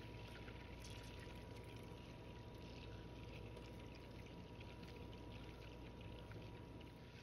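Melted butter bubbling and sizzling softly in a stainless steel saucepan as a silicone spatula stirs it: the water in the butter boiling off on the way to brown butter. A faint steady high tone runs underneath.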